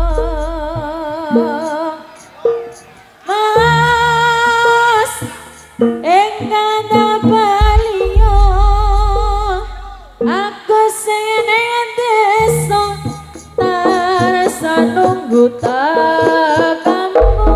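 Live Javanese jaranan ensemble music: a wavering sung melody with heavy vibrato over drumming, with deep low strokes at the start, about eight seconds in and near the end.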